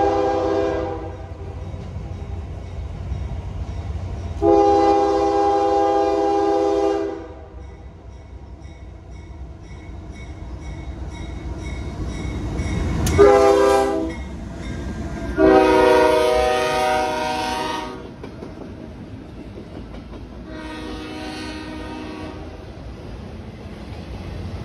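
CSX freight locomotive air horn sounding a chord in a run of blasts: one ending about a second in, then long, short, long, and a fainter long blast near the end. Under it is the low rumble of an empty autorack freight train, which swells to a sharp bang about halfway through as the train comes by.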